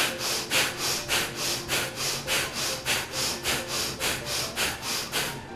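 Bhastrika pranayama (bellows breathing): a person breathing forcefully in and out through the nose in a fast, even rhythm of about four loud breath strokes a second, with both the in-breath and the out-breath made audible. The breathing stops shortly before the end.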